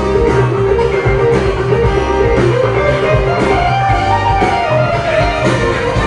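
Live cover band playing a rock song, with guitar to the fore over bass and drums.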